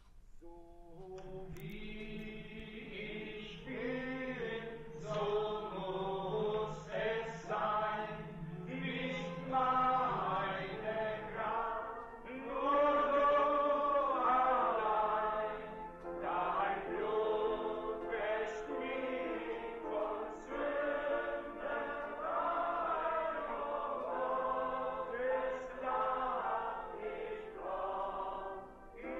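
A congregation singing a worship hymn together, many voices in unison, starting about a second in.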